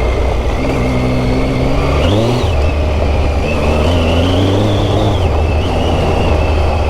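2012 Triumph Tiger 800's three-cylinder engine running under throttle through loose sand, revs rising sharply about two seconds in, then climbing and dropping again near five seconds.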